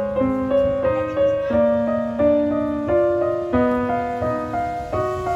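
Background music: a gentle piano-like keyboard melody, one note about every half second.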